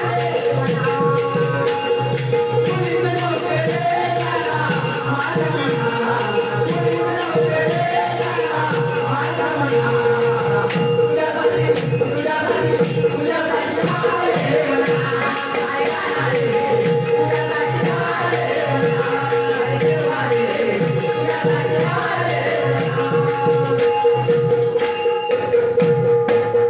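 Devotional group singing of a Marathi gavlan: voices sing over steady rhythmic percussion and a held drone note, and the music stops at the very end.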